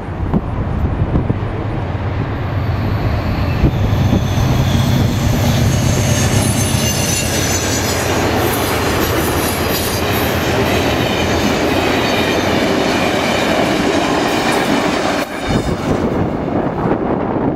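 Amtrak passenger train passing close by: a low rumble builds over the first few seconds, then the cars go by with dense noise of wheels on rail and steady high ringing tones from the wheels. The sound breaks off abruptly about 15 seconds in and resumes a little quieter as the train runs away.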